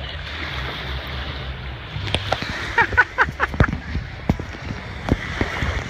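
Wind buffeting the microphone over the wash of small waves in shallow sea water, with a run of short clicks and knocks through the middle.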